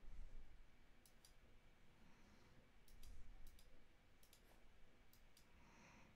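Faint computer mouse clicks, a handful scattered over a few seconds, some in quick pairs, over a low room hum.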